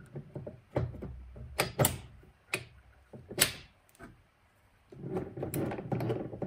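Clicks and knocks of a robot's HDPE drive wheel being slid onto its shoulder bolt and seated by hand, with a burst of rattling and scraping near the end.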